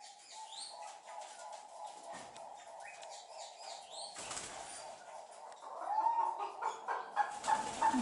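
Bird-house ambience: small birds chirping over a steady background drone that grows louder near the end, with two brief bursts of rustling, one about four seconds in and one near the end.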